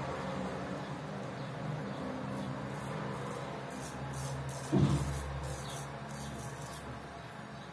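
Short strokes of a kamisori straight razor scraping through lathered stubble on the neck, a run of about a dozen quick scrapes. They sit over a steady low hum, with a dull thump about five seconds in.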